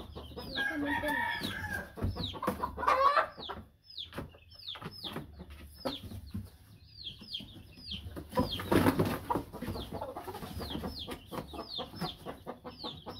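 Gamecocks clucking and crowing while a rooster is handled and put into a cardboard live-animal shipping box, with cardboard rustling and clicking as the box flaps are folded shut. Short, high, falling chirps repeat throughout.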